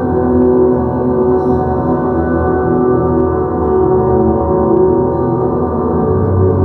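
Ambient drone music: a dense wash of overlapping sustained ringing tones with no beat, and a deeper low tone swells in near the end.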